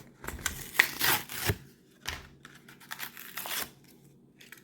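Blister packaging of a Hot Wheels die-cast car being torn open: irregular tearing and crinkling of card and plastic, in two spells with a short lull between.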